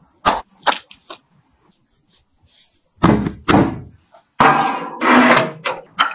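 Kitchen handling sounds from a metal cake tin and a bowl of chocolate batter. There are three light clicks, then two heavy thuds about three seconds in, then a longer scraping rush as the batter goes into the tin. Another knock comes near the end.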